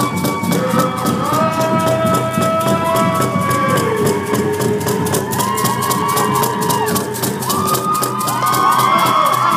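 A drum beating a steady, even rhythm while a group of voices sings over it, their pitches rising and falling, amid the noise of a crowd.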